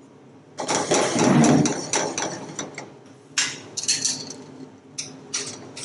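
Pineapple pieces tipped from a stainless steel bowl into a saucepan of sweet and sour sauce: a noisy rush lasting about a second and a half, followed by several sharp metal clinks and knocks of bowl and utensils against the pot.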